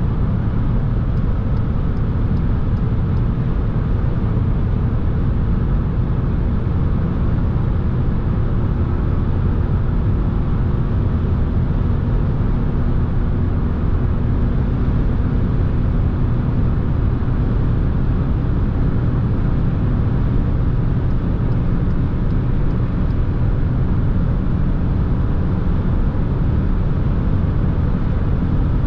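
Inside the cabin of a 2021 SEAT Ibiza 1.0 MPI (80 PS, three-cylinder) at about 140–160 km/h on the motorway, slowly gaining speed. Steady low road and wind noise with the engine's drone underneath.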